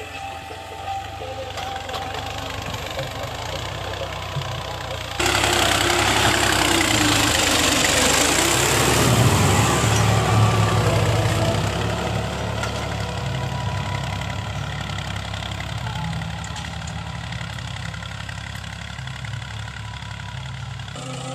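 Ghazi tractor's diesel engine running steadily as it pulls a tined cultivator through the soil. About five seconds in, a much louder rushing noise from the working cultivator comes in suddenly, then eases off after about twelve seconds.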